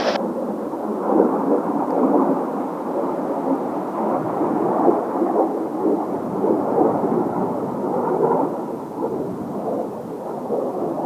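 Kawasaki T-4 jet trainers' turbofan engines: a low, rumbling noise with little hiss, swelling and fading in slow waves.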